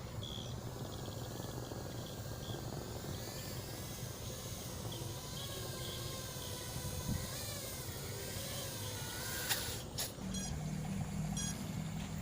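Faint whine of a 5-inch FPV drone's motors in flight, the pitch wavering up and down with the throttle. Near the end there is a sharp click and a lower steady hum sets in.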